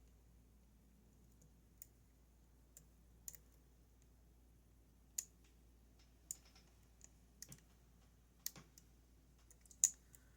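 Pick clicking against the pins inside a Goal Z pin-tumbler lock: about a dozen small, irregularly spaced clicks, the loudest near the end, as the pins are probed to feel which are set and which are springy.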